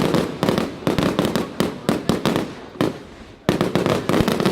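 Fireworks display: a rapid volley of sharp bangs and crackles. A short lull about three seconds in ends with a loud bang and more crackling.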